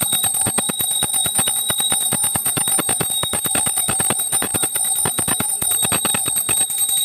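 Small brass pooja hand bell rung continuously and fast, about seven strokes a second, with a steady high ringing tone.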